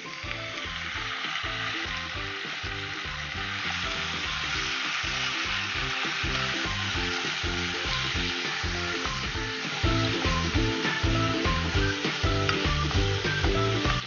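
Cubes of boneless chicken sizzling as they fry in olive oil and garlic paste in a hot pan. The sizzle starts as the chicken goes in and grows louder about ten seconds in. Light background music plays under it.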